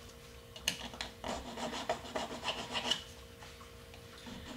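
A small hand file scraping in short strokes across the edge of a metal wheel-bearing retainer ring held on a wooden block, cleaning up its marred notches so the retainer can be reused. The strokes start just under a second in and fall off after about three seconds.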